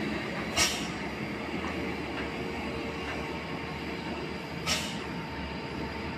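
Diesel truck engine running as the truck pulls away round a hairpin bend: a steady low drone, with two short sharp hisses, one about half a second in and one near five seconds in.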